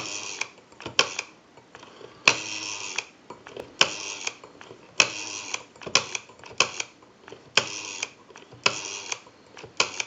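Rotary dial of an Automatic Electric Monophone desk telephone being dialed: the dial is pulled round and spins back again and again for several digits. Each return makes a brief whirring run with sharp clicks.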